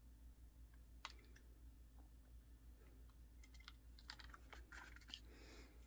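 Near silence: room tone with a few faint scattered clicks and light handling noises, a small cluster of them in the second half.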